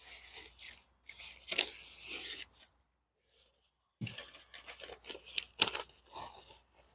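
Sticky vinyl upholstery material being peeled off with a ripping, crackling sound in short pulls: two in the first few seconds, a pause, then a longer run of peeling.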